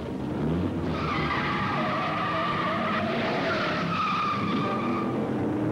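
Car tyres squealing as they spin in a burnout, over the steady rumble of the engine. The squeal starts about a second in and dies away near the end.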